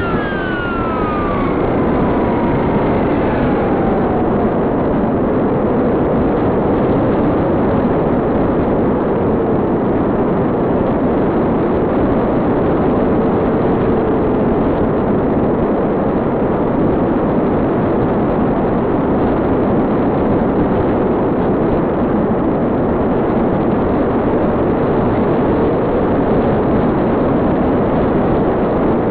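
Electric motor and propeller of a Wing Wing Z-84 flying wing running. At the start its pitch falls quickly as it slows. It then runs steadily under a dense rush of noise, with a faint tone that rises and falls as the throttle changes.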